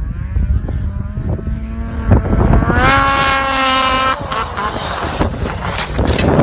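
Snowmobile engine revving up, its pitch rising over about two seconds, then held high for about a second before it drops away. Wind buffets the microphone throughout.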